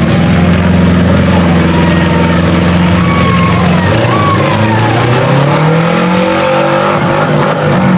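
Several four-cylinder demolition derby cars' engines running at once, one revving up and down in the second half as the cars push against each other.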